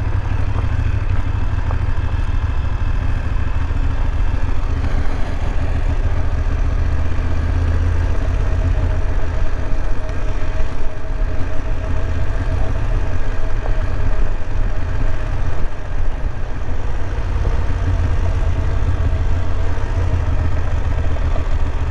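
BMW F850 GS motorcycle's parallel-twin engine running steadily at low revs as the bike is ridden down a loose gravel road, with a heavy low rumble underneath.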